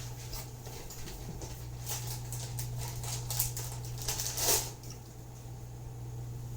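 Crunching and chewing of crisp fried cheese, in irregular crackly bites with a louder crunch about four and a half seconds in, over a steady low hum.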